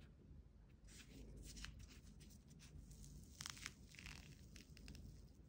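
Faint crackling and tearing of a crisp peanut-shaped monaka wafer shell as it is pulled apart by hand, in a few short clusters of crackles about a second in and again after three seconds.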